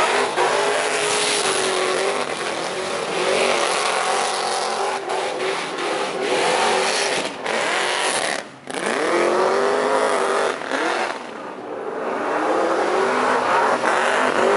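Holden GTS ute's V8 engine revving hard through a burnout, with the tyres spinning and squealing against the pad. The revs dip sharply about eight and a half seconds in, then climb again.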